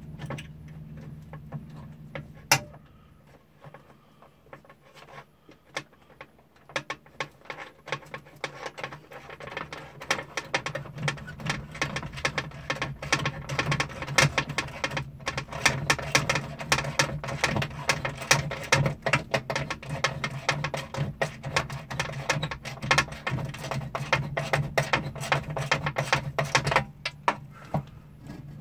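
Ratchet wrench with a deep socket clicking rapidly as a long-threaded air-conditioner mounting bolt is backed out, the clicking starting a few seconds in and stopping near the end. A steady low hum runs underneath.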